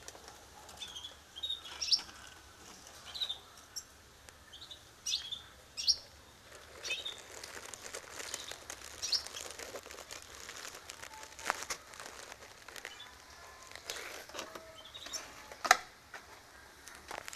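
Mozambique canaries (yellow-fronted canaries, subspecies caniceps) giving short, high chirping calls every second or so, with rustling and a couple of sharp clicks from the cage being handled, the loudest click near the end.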